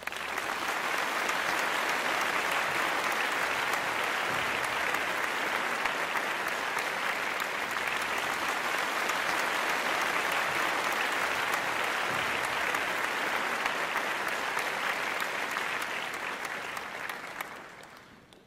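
Concert audience applauding, a steady dense patter of clapping that fades out over the last couple of seconds.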